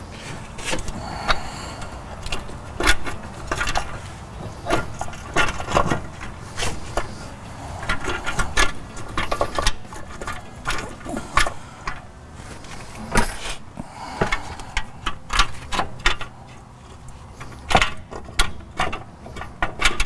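Irregular metallic clinks and knocks of a new wheel hub assembly being worked by hand onto the front axle shaft and into the steering knuckle.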